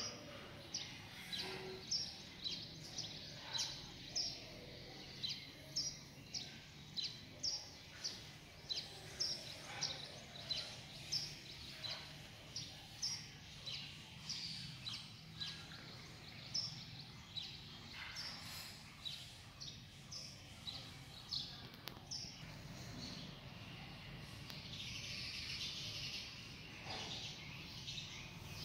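A small bird chirping over and over, a little under two short high chirps a second, stopping a little after two-thirds of the way through, over a faint steady hum.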